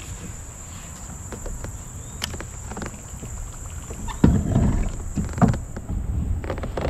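Insects calling in a steady, high-pitched drone. From about four seconds in, loud irregular bumps and rustles of rod-and-reel and kayak handling close to the microphone.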